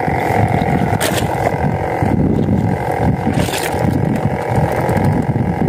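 Wind rumbling on the microphone over choppy sea water around a small boat, with a steady hum underneath.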